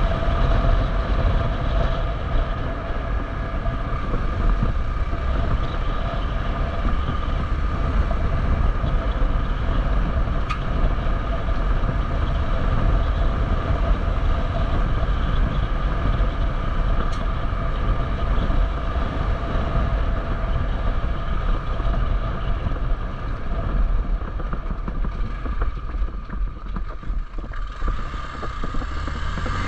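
Hero XPulse 200's single-cylinder engine running at a fairly steady speed while the bike is ridden off-road, over a heavy low rumble. It eases off briefly near the end, then picks up again.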